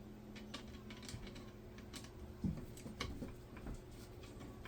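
Light clicks and taps of small hardware being handled and fitted onto plastic RC car parts: a screw, washer and nut being put on, with one duller knock about halfway.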